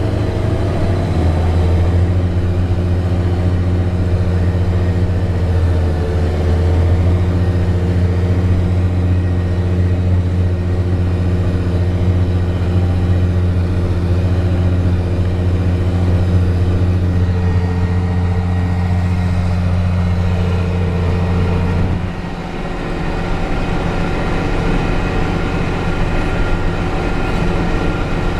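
New Holland Genesis 8770 tractor's remanufactured diesel engine running steadily under heavy load while ploughing heavy clay, at about 1,780 rpm. The drone dips briefly about three-quarters of the way through, then steadies again.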